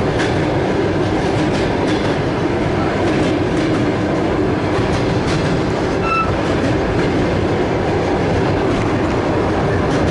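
Passenger train running: a steady rumble of the wheels on the rails, heard from inside the carriage.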